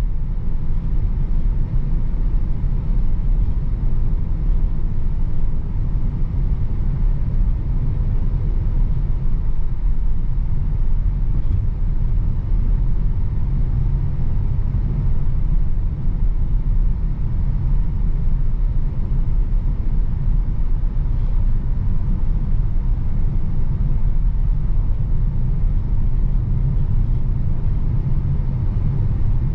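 Steady low rumble of tyres and road heard inside the cabin of a 2023 Tesla Model Y Performance while it drives.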